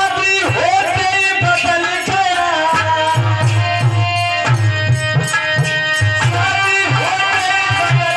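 Haryanvi ragni folk music: a melody line of held notes that slide in pitch, over a steady hand-drum beat.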